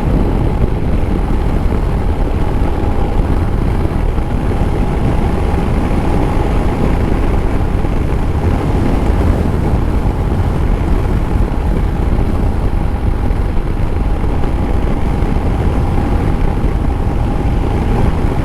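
Motorcycle cruising at a steady speed: constant wind and road rush with an even engine tone that holds one pitch throughout.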